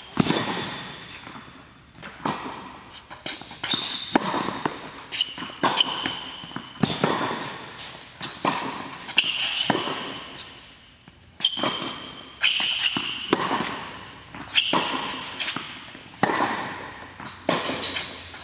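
Tennis rally on an indoor hard court: sharp racket-on-ball hits and ball bounces about every second, each echoing through the hall, with short high squeaks of tennis shoes on the court between them.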